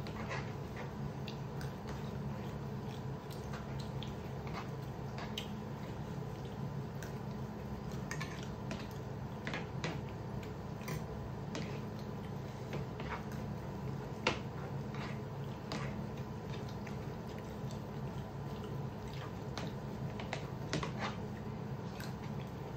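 Metal spoons tapping and scraping on plates, with scattered eating sounds from rice being eaten by hand and spoon, over a steady low hum.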